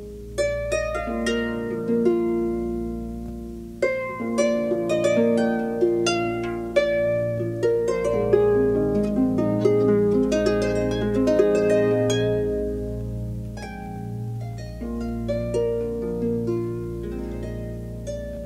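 Instrumental Asturian folk music from a 1994 cassette: plucked strings play a flowing melody of ringing, quickly struck notes over low sustained tones.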